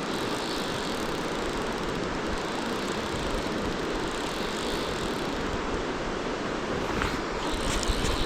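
Steady rush of river water flowing over stones, with a few faint clicks near the end.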